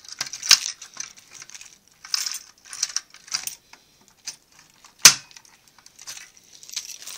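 A key ring jangling in bursts while a Fire-Lite BG-12L pull station is worked with its key, with one sharp clack about five seconds in.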